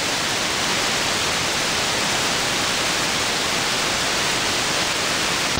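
Steady, loud hiss of an unsquelched AM airband receiver on an empty channel between air traffic control transmissions.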